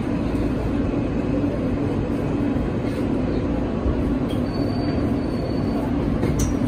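New York City subway car (G train) running on the tracks, heard from inside the car: a steady rumble of wheels and running gear.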